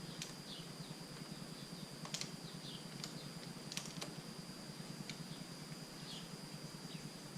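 Scattered light clicks and taps, a few seconds apart, from small parts and wiring being handled during the kill-switch install, over a steady low hum.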